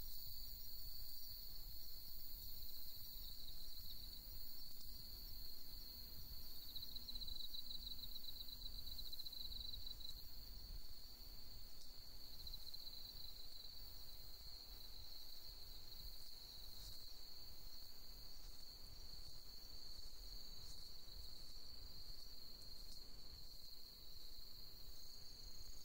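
Night insects calling in a steady high trill, with a pulsing trill standing out from about seven to ten seconds in, over a faint low rumble.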